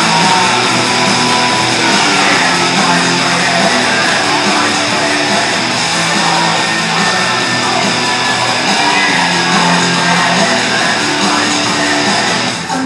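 Loud rock music with electric guitar, playing as a wrestler's ring entrance music.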